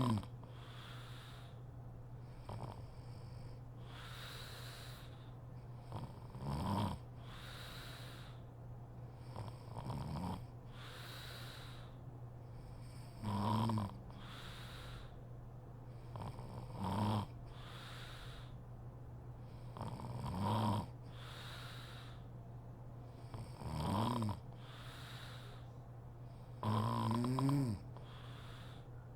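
A woman snoring in her sleep: a short snore on each breath in, about every three and a half seconds, with airy breaths out between them; the last snore, near the end, is longer. A steady low hum runs underneath.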